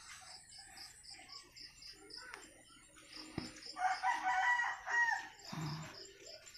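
A rooster crowing once, about four seconds in: one drawn-out cock-a-doodle-doo lasting about a second and a half that bends down in pitch at its end.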